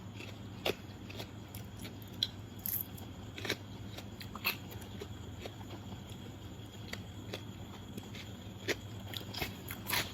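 A person chewing a mouthful of biriyani, with scattered soft mouth clicks and smacks.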